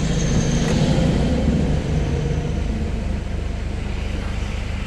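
Car engine idling, a steady low rumble heard from inside the car's cabin.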